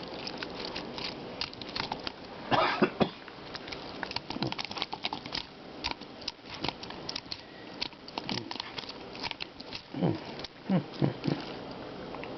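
Computer keyboard keys clicking and rattling irregularly as a lump of cleaning putty gel is pressed onto them and pulled off. There are louder clusters of clicks about three seconds in and again about ten to eleven seconds in.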